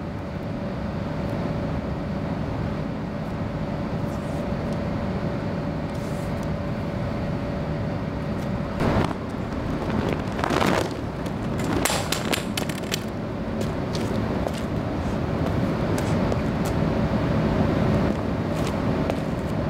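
Steady outdoor background noise like distant traffic, with a faint steady hum. Around nine to thirteen seconds in come a few brief swishes and a cluster of clattering knocks, from a colour guard flag being swung and its metal pole dropping onto brick paving.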